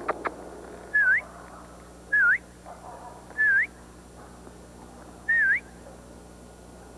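Four short whistled calls, one to two seconds apart, each holding a note, dipping briefly and then sweeping sharply upward. Two sharp clicks come just before the first call.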